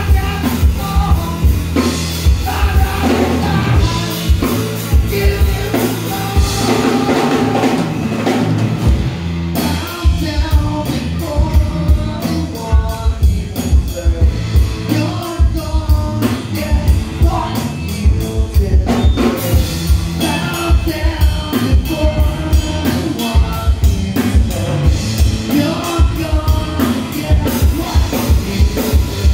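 A live rock band playing: electric guitar, electric bass and drum kit keeping a steady beat, with a man singing.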